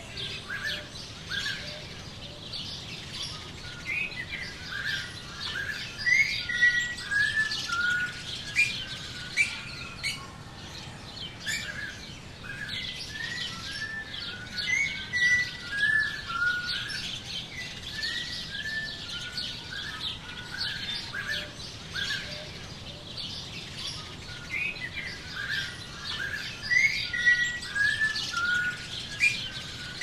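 Small songbirds chirping and singing, with quick runs of falling notes that come in bunches every few seconds.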